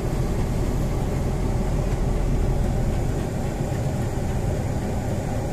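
Steady engine and road rumble of a Toyota Vios under way, heard from inside the cabin.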